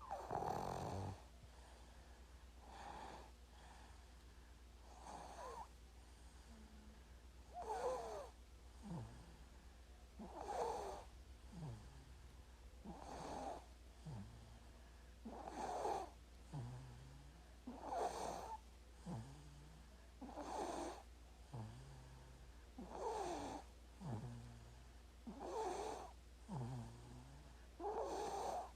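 Sleeping baby snoring softly, one snoring breath about every two and a half seconds, each followed by a shorter, lower sound, over a faint steady low hum.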